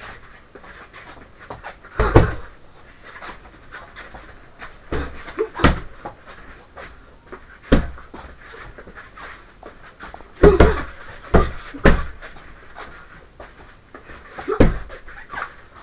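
Gloved punches landing on a hand-held body bag: single dull thuds and short combinations, with a quick run of three hits past the middle, along with breathing.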